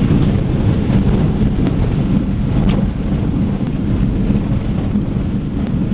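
Cessna 172 rolling out on a dirt airstrip after landing, heard from inside the cabin: the engine at low power and the wheels running over the rough ground make a loud, steady low rumble.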